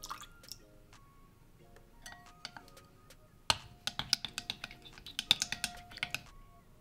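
Raw eggs being beaten with wooden chopsticks in a glass bowl, the sticks clicking rapidly against the glass from about halfway in until near the end. At the very start a thin stream of mirin splashes briefly into the eggs.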